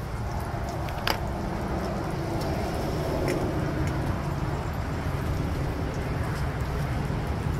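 Eggs frying in bacon grease in a stainless steel skillet over a charcoal grill: a steady sizzle with a few faint ticks, over a low rumble. There is one sharp click about a second in.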